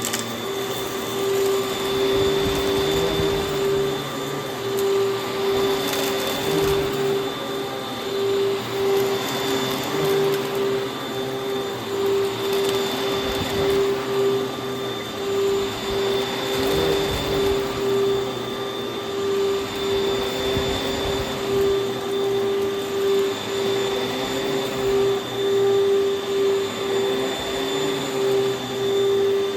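Vacuum cleaner running with a steady, loud whine, its sound swelling and dipping in a regular rhythm about once a second.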